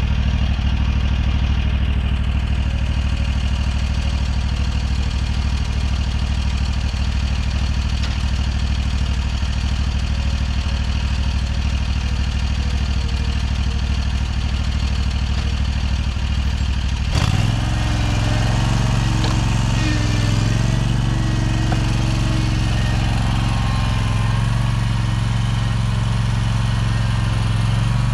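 Scag zero-turn mower's engine running steadily. About two-thirds of the way through, it revs up to a higher speed and holds it as the mower pulls away.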